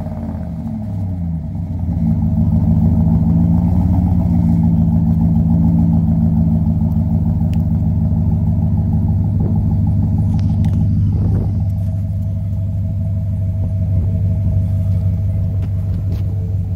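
Chevrolet Silverado pickup's engine running through an 8-inch exhaust tip. The pitch shifts over the first two seconds as the engine comes off a rev, then settles into a steady, deep idle rumble.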